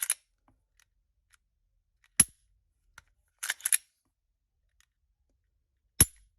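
An empty Glock 43 with an Overwatch Precision trigger and Ghost Edge connector being dry-fired: a sharp striker click about two seconds in, a short double rattle of the slide being worked to reset it, then another sharp click near the end.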